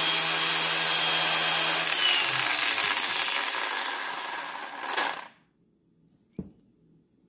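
Ridgid 18V cordless angle grinder running with no load at a steady whine, then switched off, winding down in pitch over about three seconds and stopping just after five seconds in. A single click follows about a second later.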